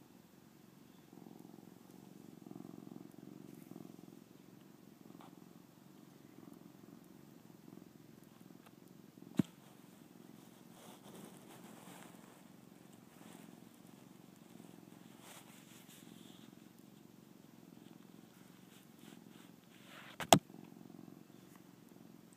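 Domestic cat purring steadily, right up against the phone's microphone. Two sharp knocks, about nine seconds in and near the end, as the cat headbutts the phone.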